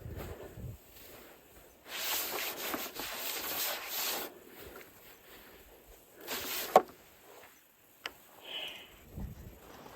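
Snow being brushed and scraped off a Starlink satellite dish: a long stretch of rough brushing, then a shorter one that ends in a sharp knock.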